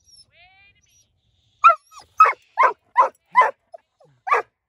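A dog barking six times in quick succession, about two barks a second, starting a second and a half in.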